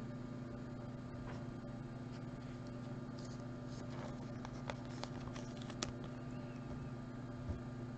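Faint clicks and light scraping of chrome trading cards being shuffled and moved from hand to hand, a few sharper ticks standing out about halfway through and near the end, over a steady low hum.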